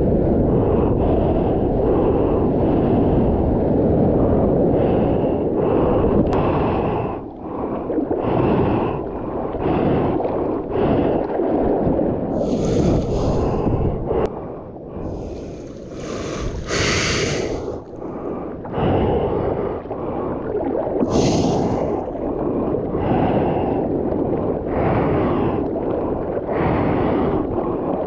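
Surf wash and wind buffeting the microphone while the surfboard rides through whitewater. From about seven seconds in this gives way to uneven bursts a second or two apart: a surfer's heavy breaths close to the microphone, mixed with water slapping and splashing around the board.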